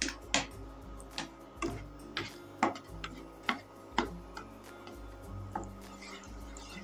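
Wooden spatula tapping and scraping on a nonstick frying pan as it pushes lumps of ghee around, a string of irregular sharp clicks that thin out after about four seconds, over soft background music.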